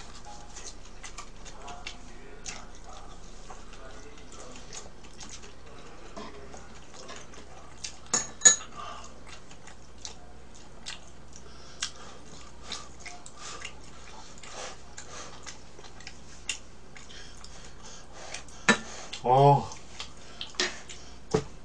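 Metal tongs and chopsticks clicking and scraping against a tabletop electric grill plate and dishes, in scattered light clicks with two louder ones about eight seconds in. A brief voiced sound comes near the end over a steady low hum.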